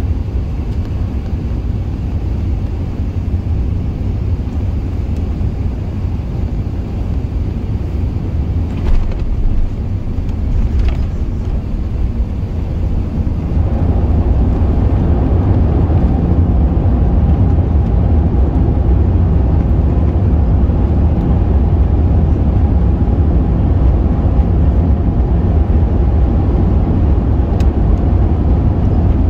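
Cabin noise of an Emirates Airbus A380 landing: a loud, steady low rumble with a small bump about nine seconds in. From about fourteen seconds in the engine noise grows louder, with a steady hum added, as the aircraft rolls out on the runway, typical of reverse thrust being applied.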